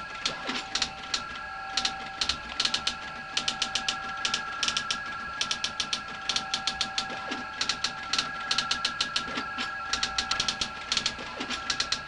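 Radio-teletype teleprinter printing a received message: rapid bursts of typing clicks with short pauses between them, over steady high tones.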